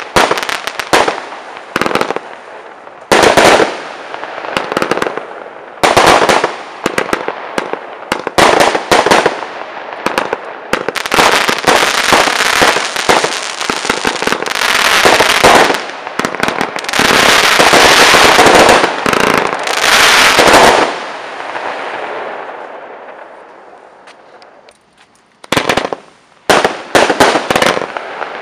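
Weco Wolfpack consumer firework going off in rapid runs of sharp bangs and crackle, densest and loudest in the middle. About three-quarters in it dies away into a fading tail, then a fresh volley of bangs starts near the end.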